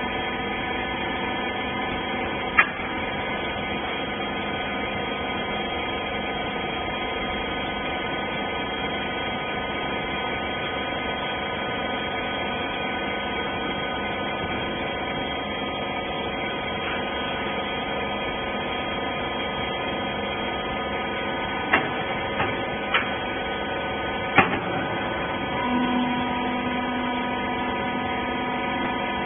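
Hydraulic baler's power unit running with a steady hum. There is a sharp knock a couple of seconds in, and a few more close together about three-quarters of the way through. A low tone joins near the end.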